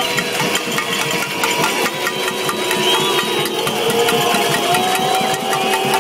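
Large protest crowd shouting and jeering, a dense din of many voices, with a few long high tones sounding over it.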